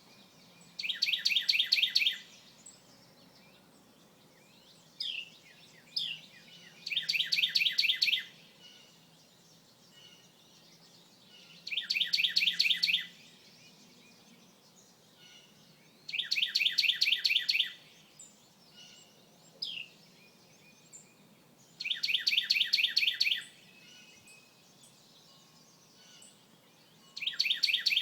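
A small songbird singing a rapid trill of evenly spaced high notes, each phrase about a second and a half long, repeated about every five seconds. A few short single chirps fall between the trills.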